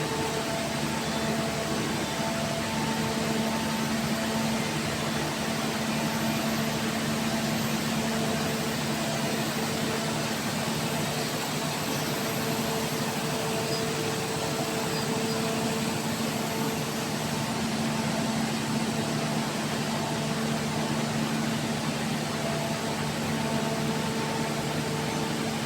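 Machinery running steadily: an even rushing noise with a constant hum made of several steady tones, no change in speed or load.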